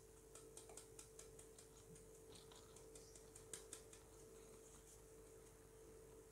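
Faint quick ticks, about four or five a second, of a round mesh flour sieve being shaken and tapped by hand as maida falls through it into a glass bowl, with one louder tap about three and a half seconds in.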